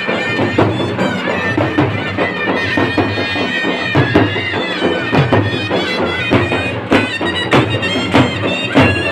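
Traditional dhol-tasha band music: a shrill reed wind instrument plays a wavering melody over a busy, loud beat of dhol and tasha drums.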